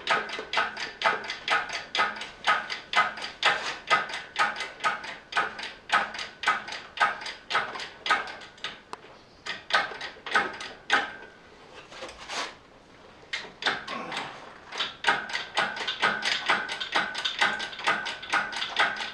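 Hydraulic engine hoist being pumped to lift the engine: a rapid run of metallic clicks and squeaks, about three a second, that stops for a few seconds in the middle and then starts again.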